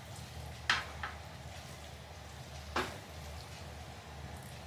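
A cooking utensil stirring and breaking up spaghetti in a frying pan of simmering mackerel-miso sauce, with three sharp clacks of the utensil against the pan, the loudest about two-thirds of a second in and another near three seconds.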